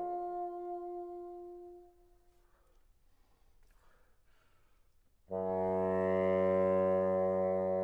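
Solo bassoon: a held middle-register note dies away over about two seconds, followed by near silence, then a low note starts suddenly about five seconds in and is sustained steadily and loudly.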